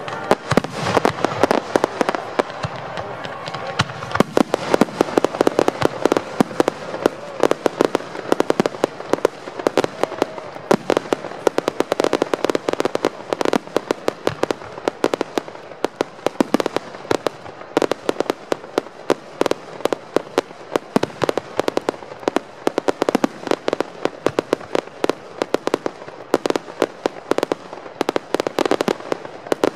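Fireworks display: aerial shells bursting in rapid succession, many sharp bangs a second with no let-up.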